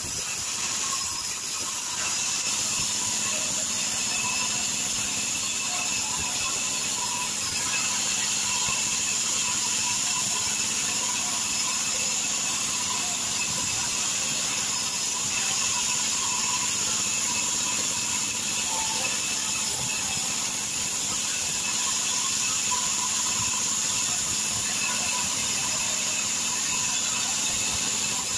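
Sawmill band saw running and ripping lengthwise through a log, a steady high-pitched whine and hiss that gets a little louder about two seconds in.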